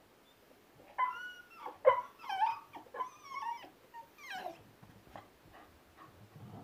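Young bull terrier whining in a run of short, high-pitched whines that bend up and down in pitch. They start about a second in and fade out after about four and a half seconds.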